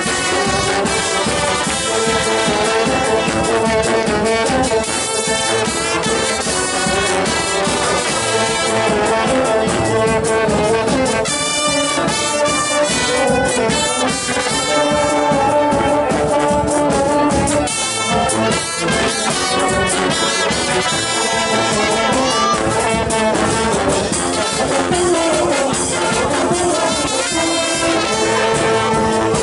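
Street brass band (a fanfare) of trumpets, trombones, saxophones and a sousaphone playing a tune together, loudly and without a break.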